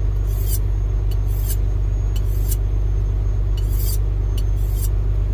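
Steady low hum, with short soft hissing bursts about once a second, while the Galanz air fryer microwave oven runs with the steak cooking inside.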